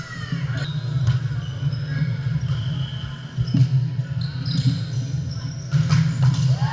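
Volleyball rally in a gym: sharp hits of hands on the ball, the loudest a spike near the end, and sneakers squeaking on the hardwood court, echoing in the large hall over a steady low hum.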